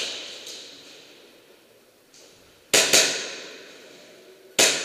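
Airsoft gunfire in a large, echoing hall: single sharp bangs, one right at the start, two in quick succession about three seconds in, and one more near the end, each ringing on in the room's reverberation.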